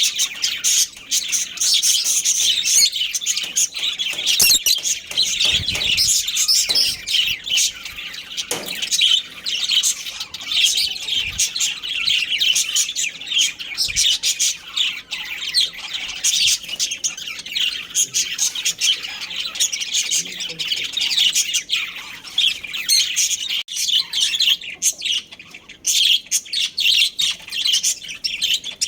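Many budgerigars chirping together, a continuous, dense twitter of overlapping high calls.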